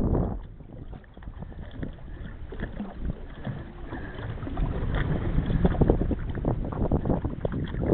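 Water lapping and slapping against a small boat's hull, with wind on the microphone and scattered knocks, growing louder in the second half; no motor running.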